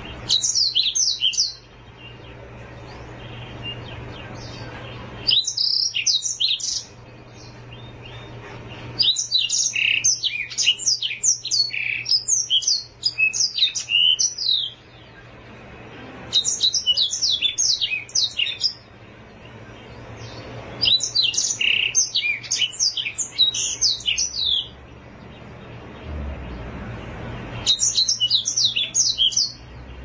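Black-throated canary (Serinus atrogularis) singing in six bursts of rapid, high twittering song with short pauses between them. The longest burst lasts about six seconds, near the middle.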